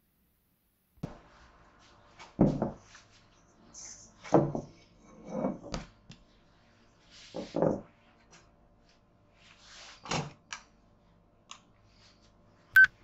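Dull knocks and thumps of a dough ball, a steel mixing bowl and a kitchen scale being handled and set down on a wooden worktop, about six irregularly spaced, with a single sharp click near the end.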